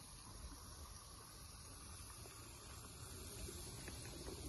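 Faint steady chorus of night insects, likely crickets, high-pitched and even, over a low rumble, with a few faint clicks.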